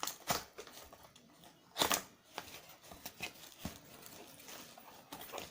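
Cardboard box of an Instax Mini 8 instant camera being handled and opened: scattered clicks and scrapes of the packaging, with one louder rustle about two seconds in.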